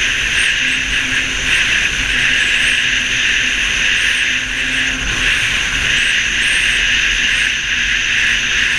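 Snowmobile running steadily at cruising speed, its engine and track making a constant drone with a hiss, heard from a camera mounted on the sled.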